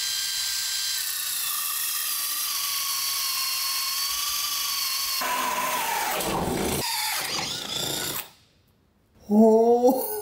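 Makita cordless drill driving a hole saw through thick teak: a steady whine whose pitch drops and wavers under load after about five seconds, then stops about eight seconds in once the saw is through. A man's voice starts just before the end.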